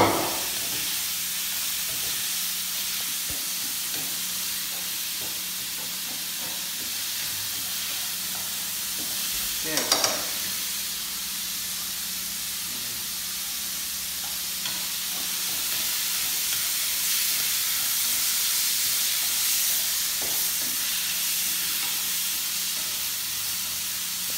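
Duck pieces with lemongrass and chili sizzling steadily as they stir-fry in a nonstick pan. There is a sharp knock at the very start and a brief clatter about ten seconds in.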